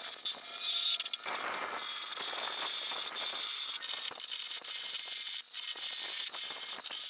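A turning tool cutting a spinning blank of green oak on a wood lathe, giving a rough, crackling scrape as shavings come off. A steady high-pitched whine comes in about a second and a half in.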